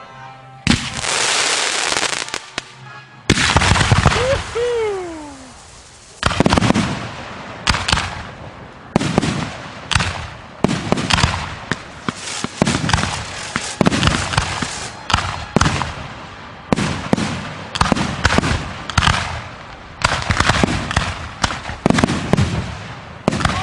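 Consumer fireworks going off in quick succession: cakes and shells bang every half second to a second, with crackle between them. A dense hissing burst comes early, and a falling whistle about four seconds in.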